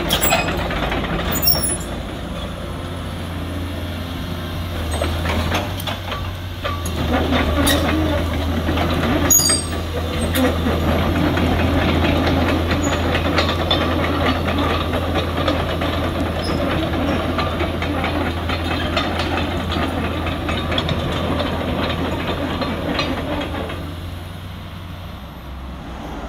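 Caterpillar 321D tracked excavator travelling over concrete: its diesel engine runs steadily under the clatter and clicking of the steel track links. It fades near the end as the machine moves away.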